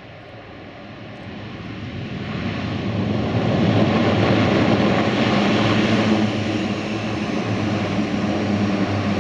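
Airbus A400M Atlas's four TP400 turboprops and eight-bladed propellers running as the aircraft taxis: a steady propeller drone that grows louder over the first three seconds or so and then holds.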